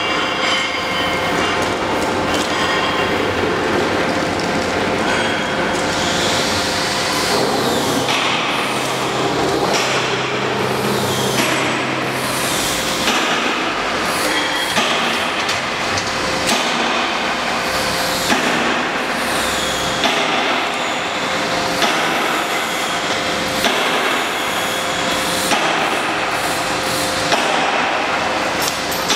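A CNC punch press working steel plate. The machine hums steadily, and from about six seconds in the punch strikes the plate in sharp regular blows, roughly one every two seconds.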